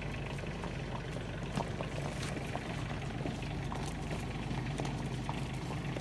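Tractor engine running steadily at idle some way off, a low even hum, with faint scattered clicks over it.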